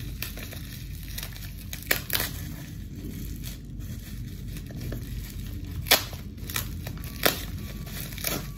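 Plastic packaging crinkling as a small parcel is unwrapped by hand, with sharp crackles every second or two.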